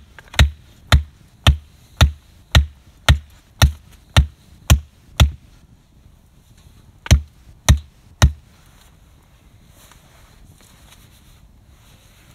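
Heavy wooden knocks, about two a second, as a pole is pounded into the ground: ten blows in a row, a short pause, then three more.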